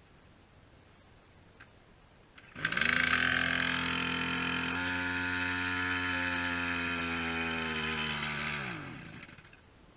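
Stihl MS180 chainsaw's two-stroke engine starts suddenly about two and a half seconds in, runs at a steady speed for about six seconds, then slows and dies near the end, stalling instead of settling to idle.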